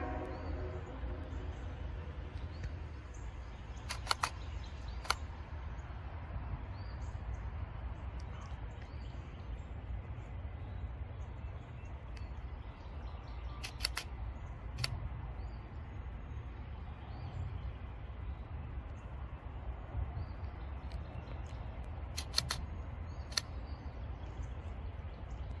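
Freight train approaching: its horn cuts off just after the start, then the low, steady rumble of the oncoming locomotive. Three short groups of sharp clicks in quick succession sound about 4, 14 and 22 seconds in, with faint bird chirps.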